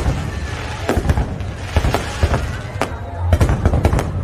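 Aerial fireworks bursting in a rapid series of sharp bangs and crackles over a steady low rumble.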